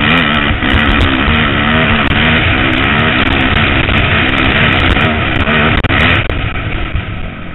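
Motocross bike engine running hard under throttle, its pitch rising and falling; it eases off about six seconds in.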